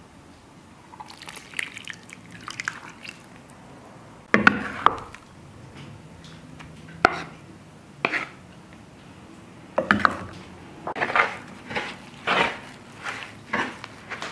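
Buttermilk pouring and dripping into flour in a wooden bowl, then a few knocks as butter goes in. From about ten seconds in, a wooden spoon stirs a stiff cookie dough against the wooden bowl in rhythmic strokes, about two a second.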